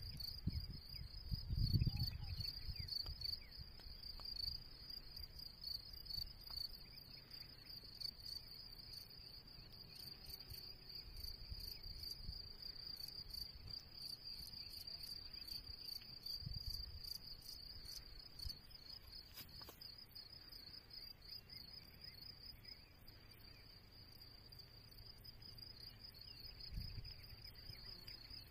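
Steady, high-pitched chorus of insects chirping in a fast pulsing trill, with occasional low rumbles, the loudest about two seconds in.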